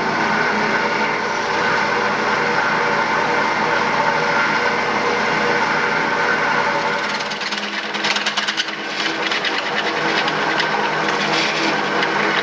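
Drill press driving a metal-cutting step bit through aluminum sheet: a steady motor hum with cutting noise. About eight seconds in, the cut turns rougher and chattery.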